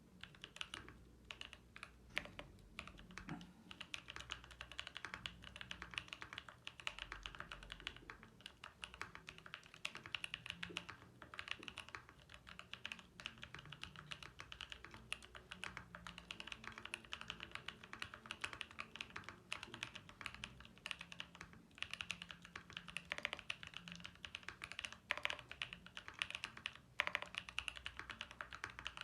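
Continuous fast typing on a Mode Eighty mechanical keyboard with lubed Gazzew U4T Boba tactile switches (68 g springs, Durock films), a POM plate and PBT/GMK keycaps, giving a deep, muted thock on each keystroke.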